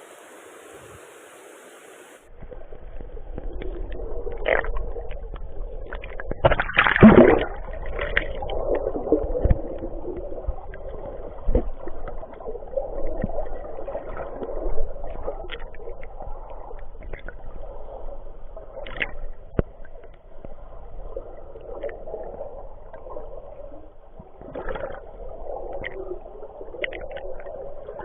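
Water sloshing and gurgling close to the microphone, with scattered knocks and clicks and one stronger splash or knock about seven seconds in. A steady hiss at the start gives way to it abruptly about two seconds in.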